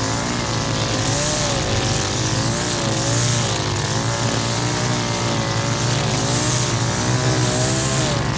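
String trimmer running at high speed while edging grass, its engine pitch wavering up and down as the line cuts under load, with a hiss of cut grass swelling every second or two.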